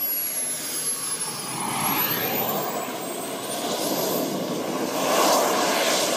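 Radio-controlled model jet's engine, a loud steady rushing noise with a faint high whine, swelling as the model comes in fast on landing and runs off the runway into the grass, a crash landing.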